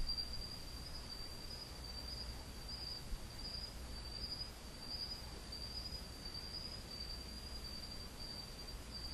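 A faint, steady high-pitched tone that wavers slightly in level, over a low hum.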